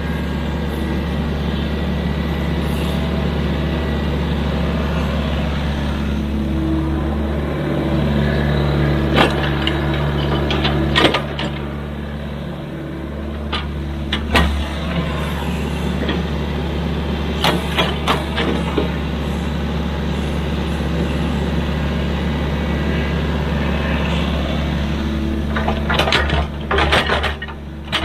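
Excavator's diesel engine running steadily, with scattered sharp knocks and clanks as it works.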